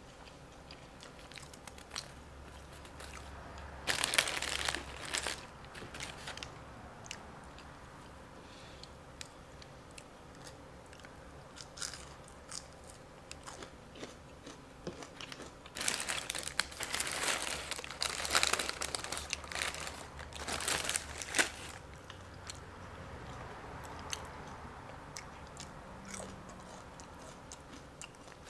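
Crunchy food being bitten and chewed close to the microphone, in two louder bouts of crunching, one about four seconds in and a longer one from about sixteen seconds, with quieter chewing clicks in between.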